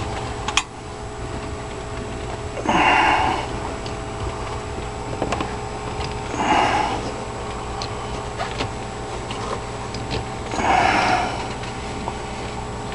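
A person breathing close to the microphone, a rushing breath about every four seconds, over a steady mechanical hum, with one sharp click about half a second in.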